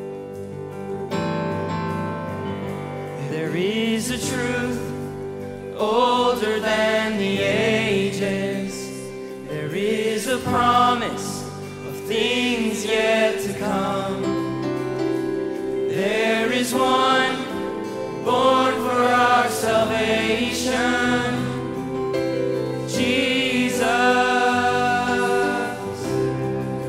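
Live contemporary worship song: a band of electric guitars, bass and piano plays a slow accompaniment, and a lead singer comes in about four seconds in, singing the melody in long phrases.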